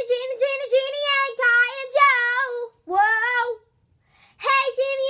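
A young girl singing a short tune on her own, with no accompaniment, holding notes near one pitch, a brief break about three and a half seconds in, then singing again.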